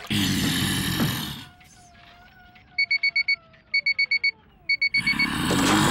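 Sci-fi machine sound effects from a red-energon processing device: a loud hiss, then a hum sliding down in pitch under three quick runs of five electronic beeps, then another loud hiss near the end. The machine is finishing a cycle of processing red energon into fuel.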